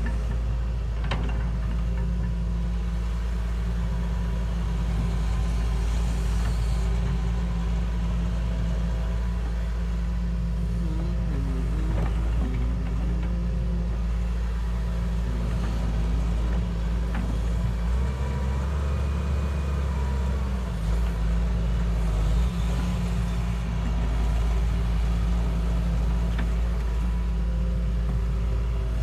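Heavy machine's engine running steadily with a low rumble and a held hum, the lowest part swelling briefly about two-thirds of the way through.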